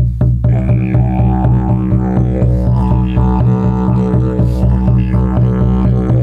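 Didgeridoo playing an unbroken low drone with a rhythmic pulsing in its tone.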